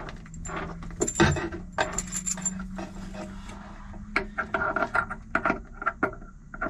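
Scattered small metallic clicks, taps and rattles as a VHF antenna cable and its connector are handled and fitted to an AIS transceiver. A faint low hum runs underneath for the first few seconds.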